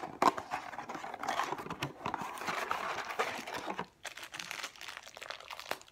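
Crinkly packaging of a toy blind box being handled and torn open by hand: a run of crackles and rustles with a few sharp clicks.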